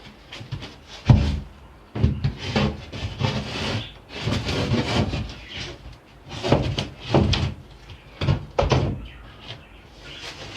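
A cut sheet of 9 mm OSB being handled and test-fitted on a wooden floor: irregular wooden knocks and scraping as the board is shifted and dropped into place, with a sharp knock about a second in.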